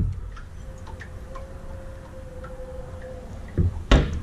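Aluminum deck hatches being handled: a sharp knock at the start, faint scattered ticks, then near the end a thump and a loud sharp clack as a hand pulls a recessed hatch latch.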